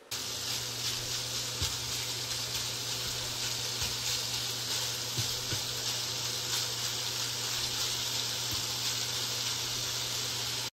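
Pieces of hot Italian sausage sizzling steadily as they fry in their own fat in a non-stick skillet, with a few light taps of the spatula stirring them.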